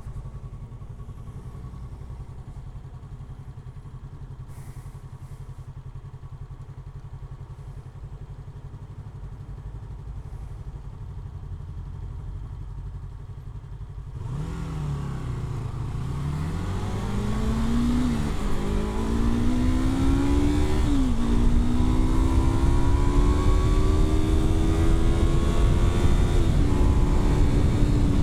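Yamaha R3's parallel-twin engine running low and steady, then about halfway through pulling away and revving up through the gears: each rise in pitch ends in a sudden drop at an upshift, three times, before it settles into a steady cruise near the end, louder than at the start.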